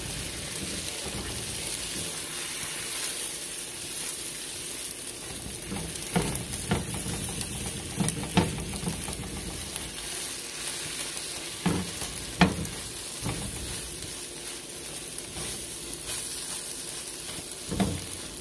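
Eggs beaten with a splash of heavy cream sizzling steadily in a hot nonstick skillet as a soft scramble. A silicone spatula stirring them scrapes and taps the pan now and then, a few sharp clicks from about a third of the way in.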